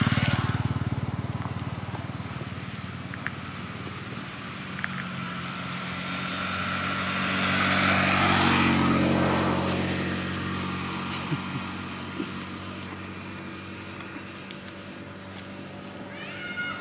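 Motor vehicles passing on the road: one is loudest right at the start and fades, and a second one swells up to its loudest about eight seconds in, then dies away, its engine note dropping as it goes by.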